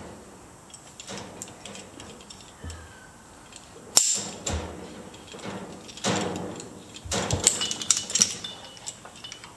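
Climbing hardware being handled: a carabiner and figure-8 descender clicking and clinking as a chained rope is undone and pulled free, with rope rustling. A sharp metallic click about four seconds in, then a flurry of clicks and jingling near the end.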